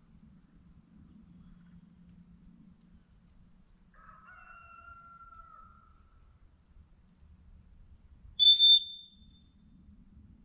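A single sharp blast on a dog-training whistle about eight and a half seconds in, one high steady tone: in retriever handling drills a single blast is the usual signal for the dog to stop and sit.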